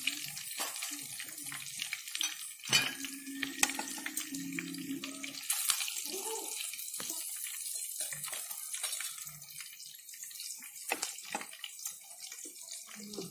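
Fish pieces deep-frying in hot oil: a steady crackling sizzle, with sharp clicks and knocks of a utensil against the pan and plate as the fried pieces are lifted out. A low hum sounds for a couple of seconds early on.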